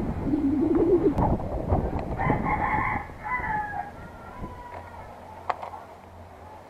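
A rooster crowing about two seconds in, one drawn-out call that falls away at its end. It comes after loud rumbling and a low wavering sound in the first second, and a few sharp clicks follow later.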